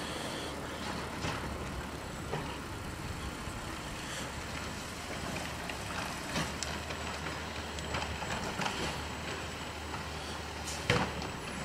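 Garbage truck's engine running at a distance as a steady low hum, with scattered clanks and a sharp bang near the end.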